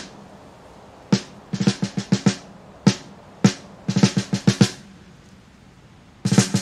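Drum kit playing a song's intro: short snare rolls and fills in separate bursts, a gap of about a second and a half, then the full band comes in near the end.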